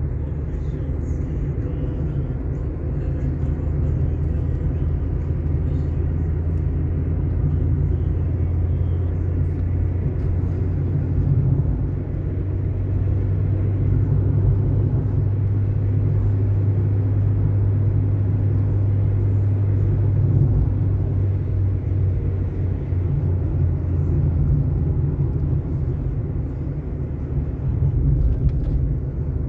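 Car driving on an asphalt road: a steady low rumble of engine and tyre noise.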